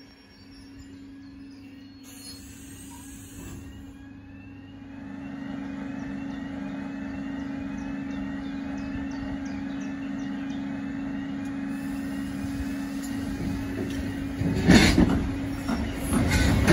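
ER9Tm electric multiple unit with a steady electrical hum that gradually grows louder. In the last couple of seconds it starts moving off, with loud knocks and the clatter of its wheels over the rail joints.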